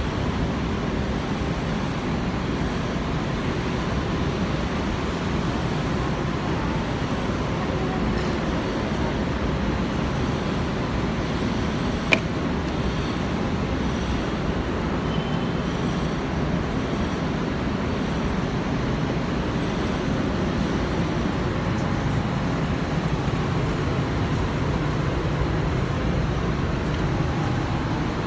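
Steady street traffic noise from cars passing on a multi-lane city road, with one sharp click about halfway through.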